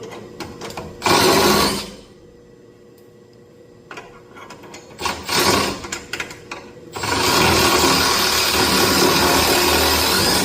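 Power drill with a 9/16 socket spinning the nut on a boiler burner door hinge bolt. It runs in a short burst about a second in and another about five seconds in, then runs steadily for the last three and a half seconds.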